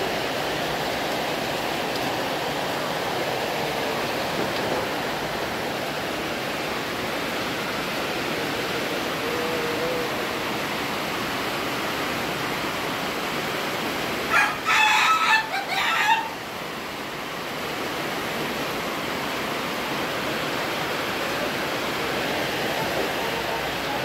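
Ayam Ketawa rooster crowing once, a little past the middle, a call of about two seconds broken into several quick choppy pieces. A steady hiss runs underneath.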